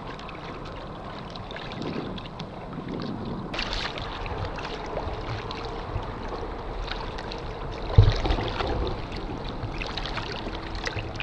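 Water splashing and lapping against a kayak hull as a hooked striped bass is brought alongside and thrashes at the surface, with one heavy thump about eight seconds in.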